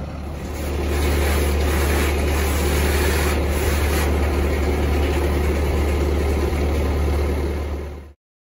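Bobcat skid steer engine idling steadily, with the steady hiss of a gas cutting torch cutting through steel angle iron from about a second in. The sound cuts off suddenly near the end.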